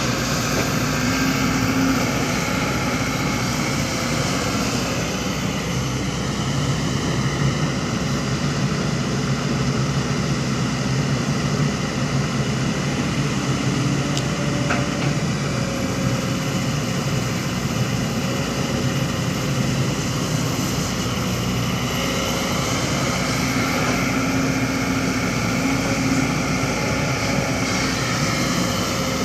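Heavy diesel construction machinery running: a steady engine drone with fainter tones that drift slowly up and down.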